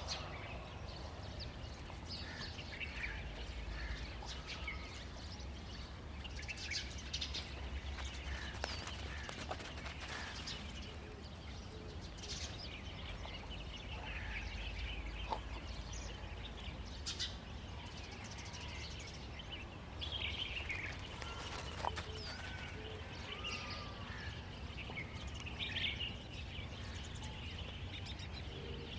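Birds chirping and calling on and off over a steady low rumble, with a few sharp ticks now and then.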